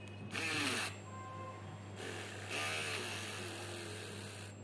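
Mini USB-rechargeable rotary drill whining as its bit bores into wood, the pitch dipping and recovering as the drill is pressed in, which slows the small motor. A louder burst comes about a third of a second in.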